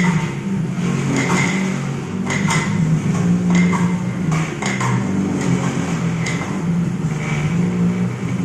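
Automatic-feed CO2 laser marking machine running: a steady low mechanical hum with irregular sharp clicks and clatter from the feeding and conveyor mechanism, cutting off suddenly at the end.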